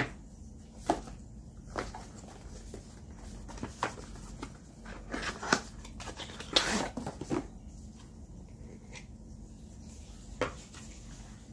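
Cardboard packaging and a plastic desktop phone stand handled by hand: scattered taps, clicks and short rustles of the box and paper. A longer rustle comes a little past the middle, and there is a single sharp tap near the end.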